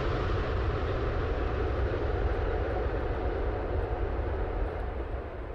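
Jet airliner engine noise: a steady rumble that fades away near the end as the aircraft moves off.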